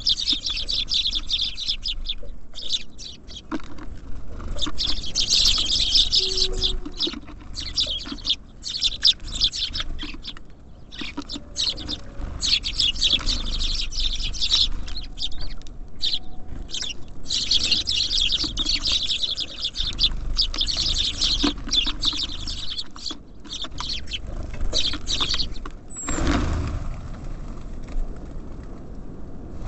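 Small songbirds, tits and sparrows, chirping and chattering busily at a feeder in long runs broken by short gaps, with many small clicks among them. Near the end a low rushing noise sets in and carries on.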